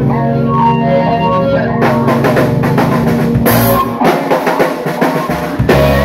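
Live band of pedal steel guitar, keyboard and drum kit playing. A held chord for the first couple of seconds gives way to busy drum fills with cymbal crashes, the loudest about three and a half seconds in and another near the end.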